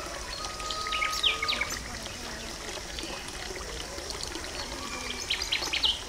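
Small birds chirping: groups of short, high chirps about a second in and again near the end, over a steady background hiss.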